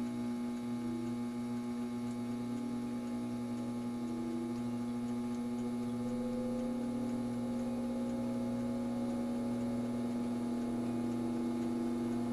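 Solder fume extractor's all-metal fan running at its lowest speed just after switch-on, its motor giving a steady hum with a slight vibration. A fainter tone slowly rises partway through as the fan comes up to speed. The fan's bearings have freshly been oiled with 3-in-One oil, after being dry.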